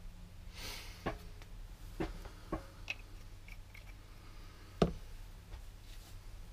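Scattered small clicks and taps of metal parts and a tube being handled on a workbench, with one sharper knock nearly five seconds in.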